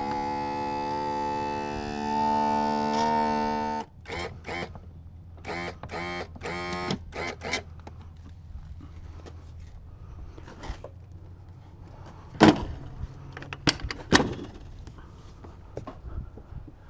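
Mercury OptiMax outboard's electric power trim/tilt motor whining steadily for about four seconds as the outboard is set onto its engine mount. Its pitch and level rise slightly about halfway, then it cuts off suddenly. A few sharp metallic knocks follow later.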